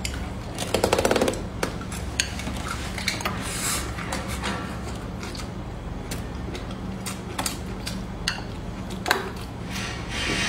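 Close-miked eating: chewing stir-fried meat and squid, with many short mouth clicks and smacks and the odd chopstick tap, over a steady low hum.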